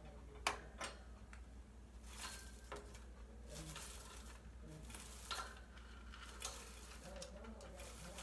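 Wire hamster cage door clinking as it is opened, with a sharp metallic click about half a second in, then soft rustling and light knocks as a hand reaches inside the cage.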